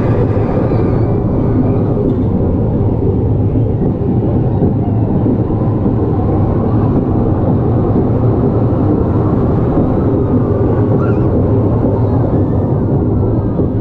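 Steady low rumbling noise that runs without a break at an even level.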